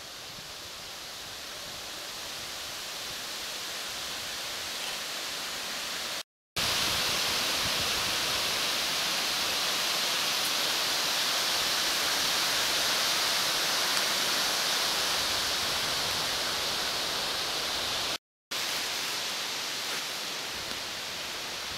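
Steady rushing hiss of wind through the forest's leaves, growing slowly louder, broken twice by brief cuts to silence.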